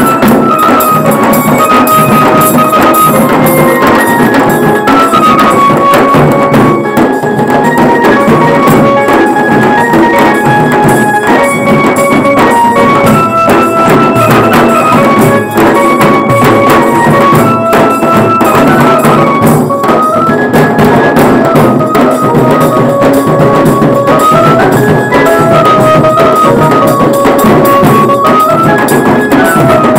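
Bengali wedding band playing loudly: a melody line moving up and down in steps over dense, continuous drumming, recorded close on a phone microphone.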